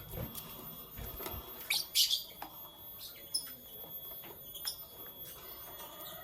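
Lovebirds chirping in short, high, scattered chirps, the loudest a quick cluster about two seconds in, with a few soft knocks near the start.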